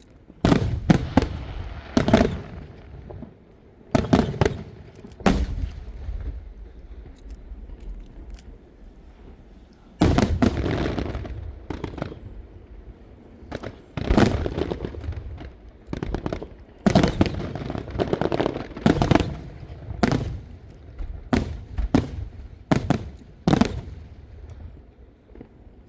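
Aerial fireworks shells bursting overhead in quick clusters of sharp booms, each with a deep rumble and crackling tail, with brief lulls of a few seconds between volleys.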